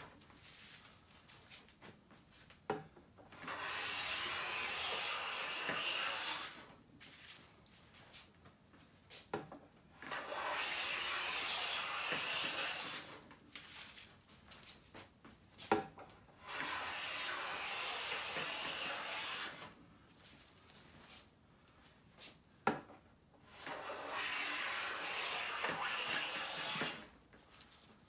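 Siegley StS #7 jointer plane taking full-length shavings off a straight-grained pine board: four long cutting strokes of about three seconds each, each preceded by a sharp knock, with quieter gaps between.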